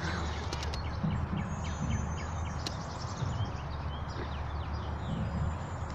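Birds chirping over the steady low rumble of a garbage truck's engine.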